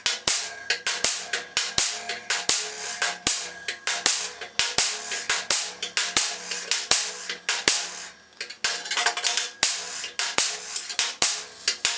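Hammer blows on a piece of 3/16-inch flat steel being shaped, ringing strikes at about two to three a second with a brief pause about eight seconds in.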